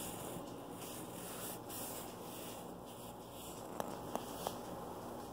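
Faint room hiss, then about four seconds in three small, sharp clicks close together: a click beetle on its back snapping its thorax hinge as it tries to flip itself upright.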